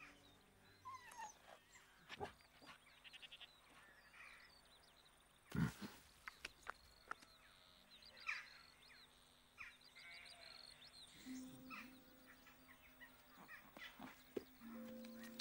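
Quiet outdoor farm ambience: faint bird chirps and scattered small clicks, with one louder short animal sound about five and a half seconds in. Low held tones come in near the end.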